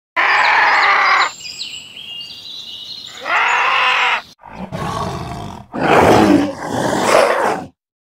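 Wild animal calls: two loud, harsh, raspy calls with high bird chirps between them, then lower, rough growling calls in the second half that break off shortly before the end.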